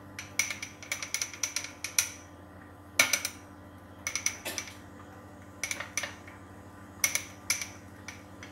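Short clinks and scrapes of a utensil against a small dish as coffee grounds are pressed down firmly around a candle piece, in small clusters about once a second.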